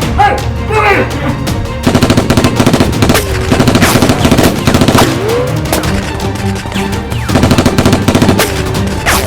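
Several bursts of rapid automatic gunfire, each a second or so long, over loud background music with a heavy bass.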